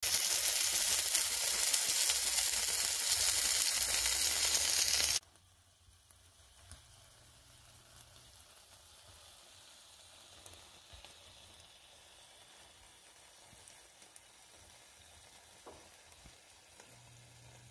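Ribeye steaks sizzling in a cast-iron skillet. The hiss cuts off abruptly about five seconds in, leaving near silence.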